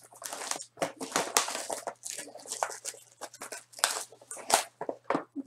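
Crinkling and tearing of a plastic or foil wrapper as a sealed trading card box or pack is torn open, in a rapid, irregular string of short rustles.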